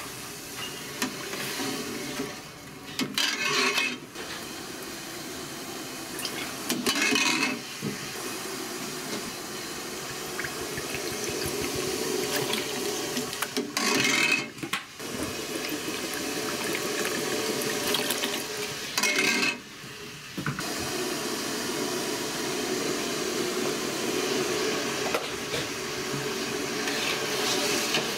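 A stock pot of soy sauce and mirin simmering liquid bubbling at the boil. Seasoning is poured in and a metal ladle stirs it, with about five short, louder pouring or splashing bursts spread through.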